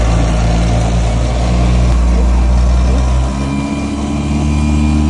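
Boat outboard motors running under way. About three seconds in, the engine note changes: the deep low hum gives way to a higher steady note.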